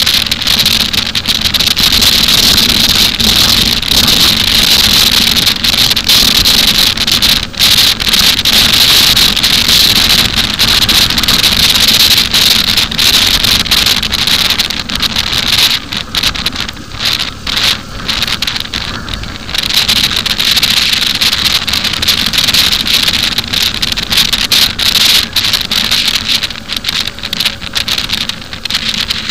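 Wind rushing over the microphone of a moving motorcycle, with the motorcycle's engine running steadily underneath. The noise drops back for a few seconds a little past the middle, then returns.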